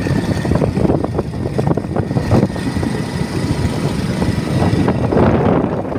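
Motorcycle running on the move, a continuous rough engine and road rumble.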